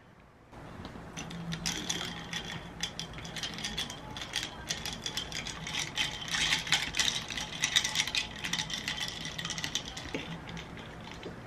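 Ice cubes clinking and rattling against a tall glass as an iced almond latte is stirred with a long stirrer, a quick run of sharp clinks that starts about half a second in.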